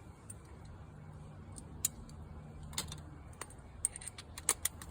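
Scattered light clicks and small clatters of hand-tool work, with several quick ones near the end: T20 Torx screws being backed out of the plastic cover over the glove box latch. A faint low hum sits underneath for the first few seconds.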